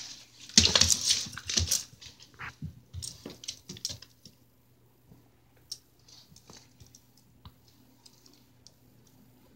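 A dog scuffling on a wooden floor and snatching up a fabric ball in its mouth: a loud burst of scuffling and clicks about half a second in, then scattered soft clicks and mouthing sounds that fade to faint ticks.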